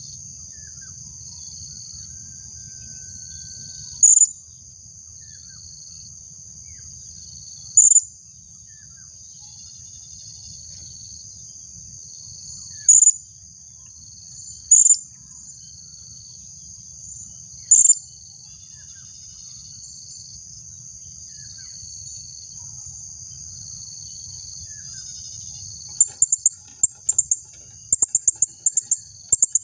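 Female blue-crowned hanging parrot (serindit) giving short, sharp, high calls, five single ones spaced a few seconds apart, then a quick run of calls near the end. Under them runs a steady high drone of insects.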